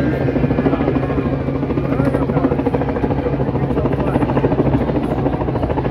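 Helicopter overhead, its rotor giving a steady, rapid chop that does not let up, with a crowd talking underneath.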